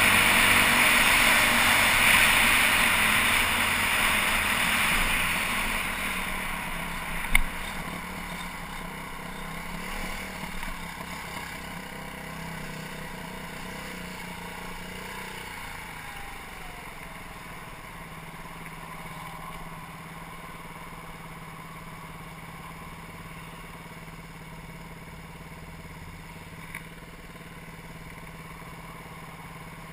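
BaltMotors Motard 200 supermoto riding with engine and wind noise, slowing down over the first half, its revs dropping until the engine settles to a steady idle for the second half. One sharp click about a quarter of the way in.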